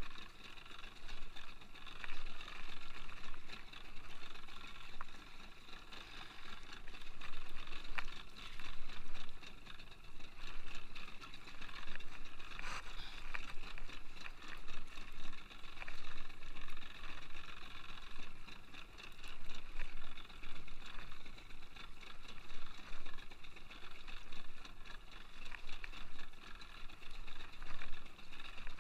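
Fishing reel winding in line against the weight of a hooked cuttlefish, rising and falling in loudness every second or two.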